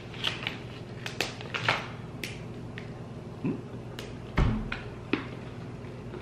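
A paper-and-foil chocolate bar wrapper being handled and pieces of a candy-cane dark chocolate bar broken off: scattered short crinkles and snaps, with a soft thump about four and a half seconds in.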